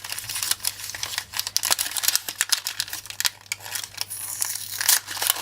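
Wrapping paper crinkling and rustling in many irregular crackles as a small parcel is unwrapped by hand.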